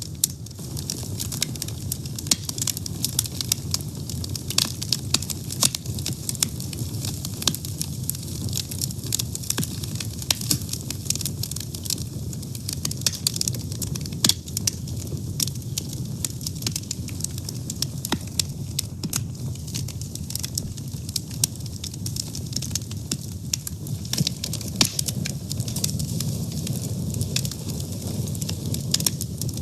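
Wood fire burning: many sharp crackles and pops over a steady low rumble of flames.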